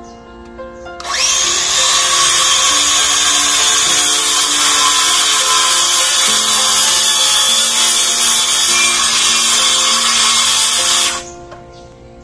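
DeWalt cordless circular saw cutting through corrugated metal sheeting: a loud, even, high-pitched cutting noise that starts about a second in, holds for about ten seconds and stops abruptly near the end. Background music runs underneath.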